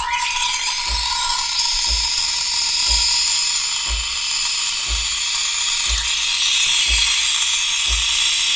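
Espresso machine steam wand steaming milk in a pitcher: a loud, steady hiss that comes on suddenly, with a brief whistle at the start and a low thump about once a second underneath.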